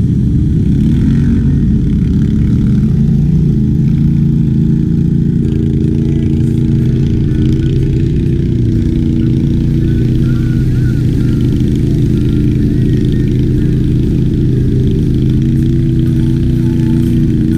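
ATV engine running under way, its revs rising and falling as the throttle changes.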